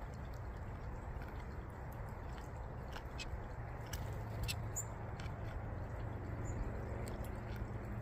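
Goldfinches pecking and cracking seed in a wooden tray feeder: scattered small sharp clicks over a steady low rumble, with one brief high chirp about halfway.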